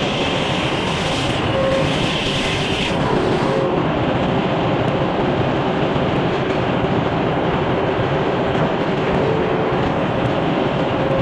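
Portable band sawmill running loud and steady. A higher hiss in the noise drops out about three and a half seconds in.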